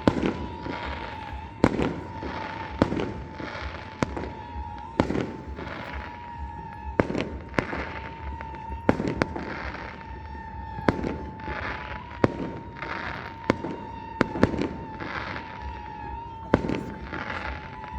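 Fireworks going off in a long succession of sharp bangs, irregularly spaced about once a second, each followed by a crackling, hissing tail.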